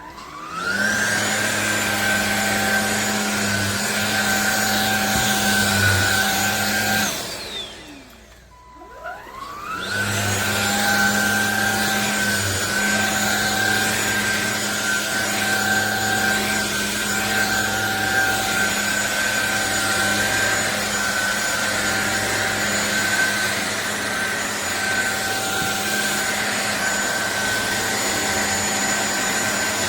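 SunSare X7A cordless stick vacuum running with a steady high motor whine. It spins up at the start, winds down with a falling whine about seven seconds in, then is switched back on and spins up again about ten seconds in.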